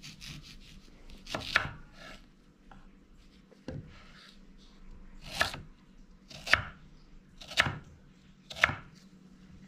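Crinkle-cut knife slicing through a crisp plum-pickled guava and coming down on a wooden cutting board: six cuts, the last four about a second apart.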